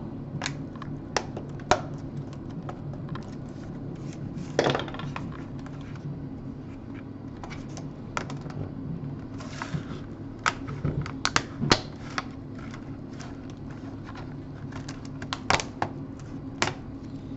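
Scattered clicks, taps and a short scrape of the plastic keyboard and casing parts of a Toshiba Portege 660CDT laptop being handled and fitted, over a low steady hum.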